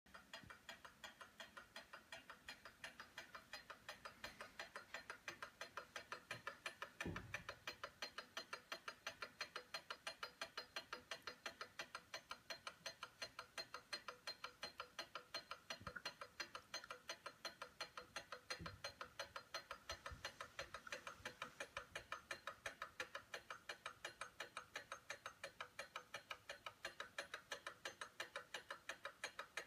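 The movement of a Black Forest sentry cuckoo clock ticking rapidly and evenly, about four to five ticks a second. It is running fast because its pendulum has been removed. A few soft low thumps are mixed in.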